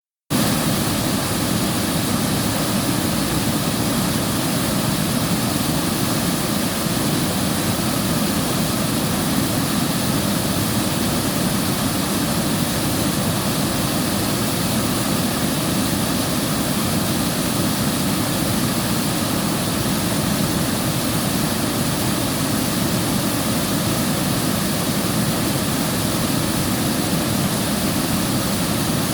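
River water flowing: a steady, unbroken rush.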